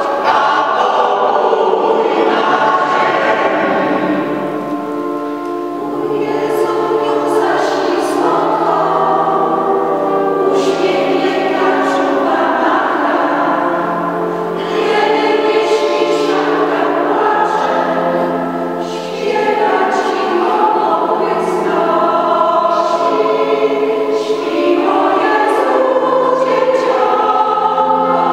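Mixed choir of women's and men's voices singing a Polish Christmas carol (kolęda), with held notes in long phrases and short dips between phrases about every five to ten seconds.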